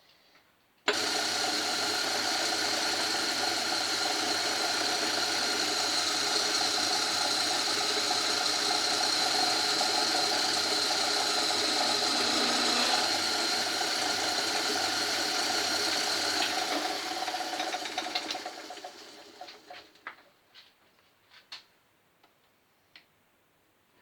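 Old Myford lathe switched on with a sudden start, running steadily for about fifteen seconds with a high steady whine over a mechanical rattle, then switched off and spinning down over a few seconds. A few sharp clicks follow near the end.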